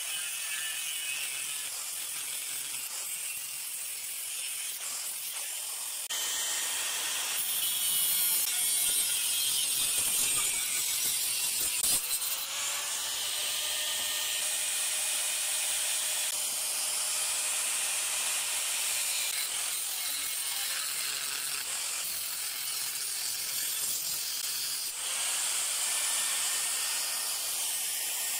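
AEG angle grinder with its disc cutting into a steel bar, a steady high-pitched grinding hiss that grows louder about six seconds in.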